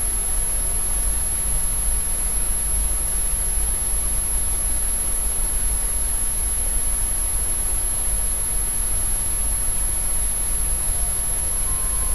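Steady hiss and low hum of the recording's background noise, with a constant thin high-pitched whine. No recitation.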